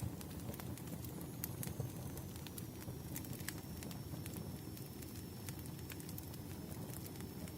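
Wood fire crackling: irregular sharp pops and snaps over a steady low rumble, with a faint high-pitched whine in the background.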